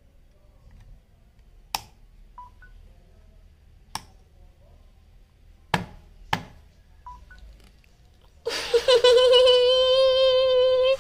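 Rocker switches on a plastic power strip clicking as they are pressed: four sharp clicks a second or two apart, with a couple of faint short beeps between them. About two and a half seconds before the end, a loud, long held tone with a steady pitch takes over.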